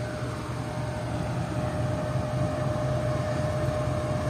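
Diesel locomotive of an approaching passenger train, its engine rumble growing slowly louder, with a steady high whine underneath.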